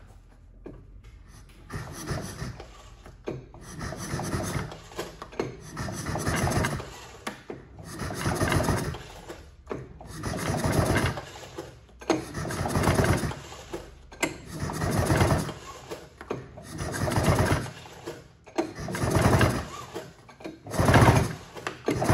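Recoil starter rope of a 1971 Skiroule RT500's Sachs two-stroke engine pulled about ten times, roughly one pull every two seconds. Each pull is a rattling whir as the engine turns over with its spark plugs out, so it cannot fire. The engine had been locked up and has just been freed with penetrating oil; it seems to be turning pretty good.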